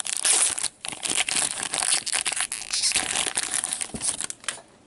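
Foil trading-card pack wrapper crinkling and rustling as it is handled and opened, a dense crackly rustle with a brief break about a second in, stopping about four and a half seconds in.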